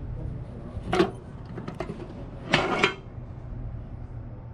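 Glass bottles knocking and clattering against a tabletop as they are handled: a short knock about a second in, then a longer clatter about two and a half seconds in, over a low steady hum.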